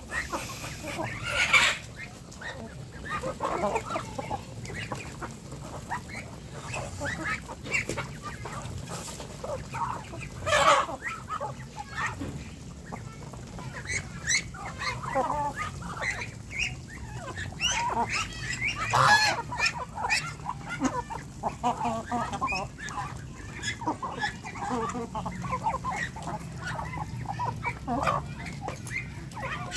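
A mixed flock of Muscovy ducks and chickens feeding together on scattered grain, with frequent short, overlapping calls and the clicks of beaks pecking the ground.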